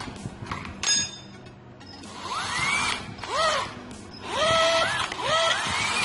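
A sharp metallic click about a second in, then a hand-held electric drill started in four short bursts, its motor whine rising in pitch and levelling off each time.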